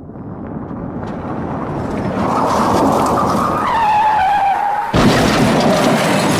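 Watercraft engine running at high revs, its whine rising in loudness and dropping in pitch about four seconds in; about five seconds in it cuts suddenly to loud rushing, splashing water noise.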